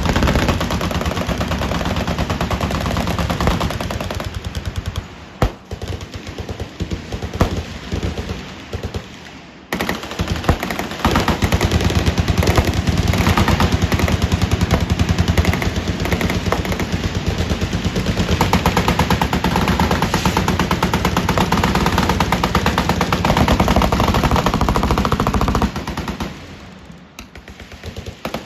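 Several machine guns firing in long, overlapping bursts of rapid automatic fire. About five seconds in, the firing thins to scattered single shots, then dense fire resumes about ten seconds in and dies away near the end.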